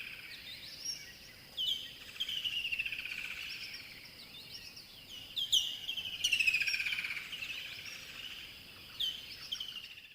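Several rainforest birds calling at once: sharp, high chirps and long, falling, trilled phrases overlapping, over a steady high tone, fading out at the very end.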